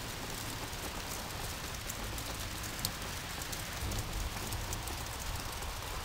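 Steady outdoor hiss with many scattered faint ticks, over a low rumble.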